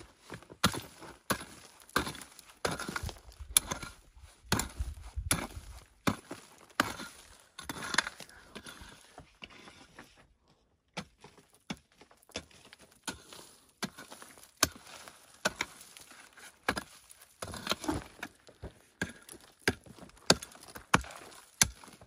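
A long-handled pick striking hard, stony soil over and over, about one and a half strokes a second, with loose stones and earth rattling. There is a short pause a little before the middle.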